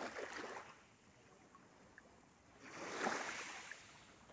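Small waves lapping onto a sandy beach: two soft washes of water, one right at the start and another about three seconds in.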